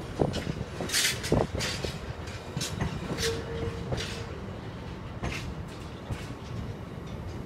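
Empty bogie coal hopper wagons rolling slowly past, wheels rumbling on the track with irregular clanks and rattles and sharp high metallic squeaks. A short steady squeal sounds a little after three seconds in.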